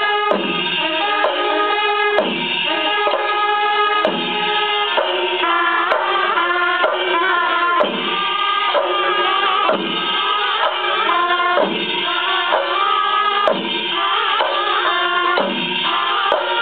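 Kerala temple percussion ensemble playing loudly: drums and percussion under steady held tones, with a deep beat about every two seconds.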